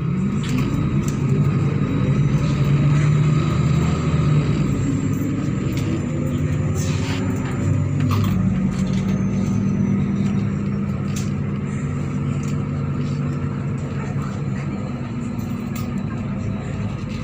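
MAZ-103.486 city bus engine pulling away and speeding up: the engine note rises, drops at a gear change about four seconds in, rises again until about eight seconds in, then settles into a steady cruise. A few sharp clicks and rattles sound over it.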